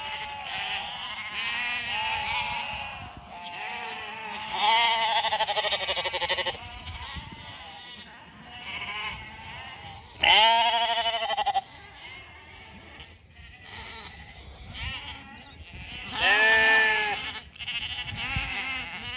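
Zwartbles lambs bleating over and over, with three loud, long, wavering bleats about five, ten and sixteen seconds in, and fainter calls between them.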